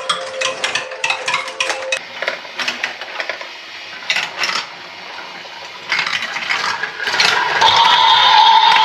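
Marbles rolling and clattering through a toy marble run: quick clicks during the first two seconds, then scattered rattles and knocks. About seven seconds in, a louder steady electronic toy tone starts.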